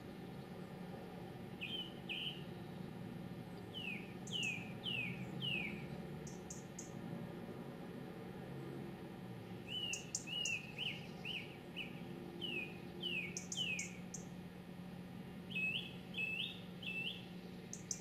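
A small songbird singing repeated short phrases: a few thin, very high ticks, then a run of two to six quick whistled notes that slur downward, with pauses of a second or two between phrases.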